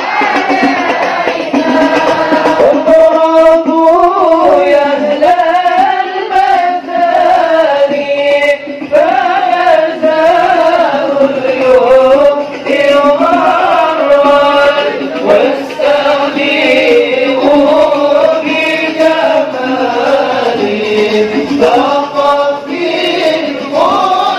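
Devotional sholawat chanting in praise of the Prophet, with one melodic vocal line that bends and ornaments its pitch and continues without a break.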